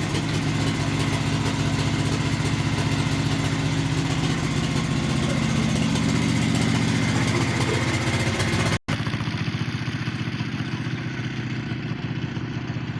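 An engine running steadily at an even speed. It cuts out for an instant nearly nine seconds in and carries on a little quieter.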